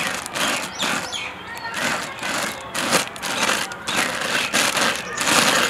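Transparent polythene sheet crinkling and rustling in repeated strokes as an oiled hand rubs over it.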